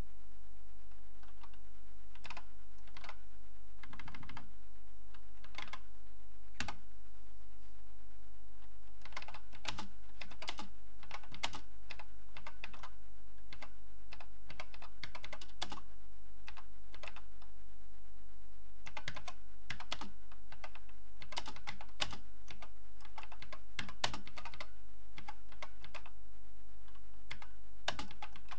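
Typing on an Acorn Electron home computer's keyboard: irregular key clicks in quick runs with short pauses, over a steady electrical hum.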